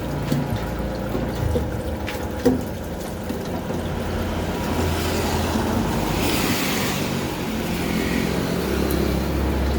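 Citrus juice press machine running: a steady motor hum with a few sharp knocks, the loudest about two and a half seconds in, and a brief rush of hiss about six seconds in.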